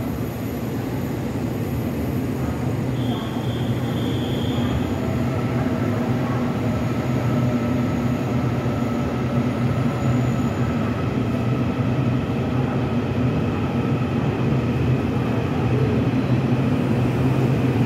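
Taiwan Railways EMU800 electric multiple unit pulling into the platform, its low running hum growing steadily louder as it approaches and slides past. A brief high tone sounds about three seconds in.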